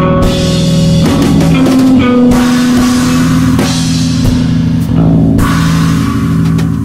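Rock background music with electric guitar and a drum kit keeping a steady beat.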